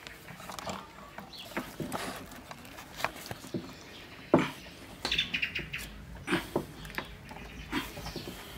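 Wooden skewers being worked through a raw skinned rabbit on an enamel plate: scattered irregular clicks and taps of stick, hands and meat, with one louder knock about halfway through. Birds chirp in the background.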